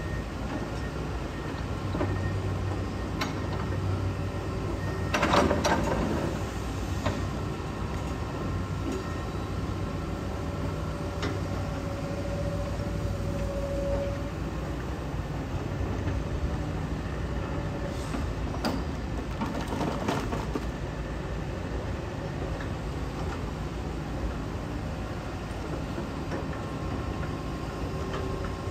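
Hitachi ZAXIS 210K hydraulic excavator's diesel engine running steadily, with clanks of metal now and then, loudest about five seconds in and again near the twenty-second mark.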